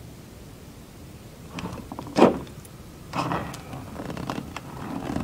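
Plastic clicks and clatter of Mr. Potato Head toy parts being handled and pulled from the body, with one sharp, loud click about two seconds in.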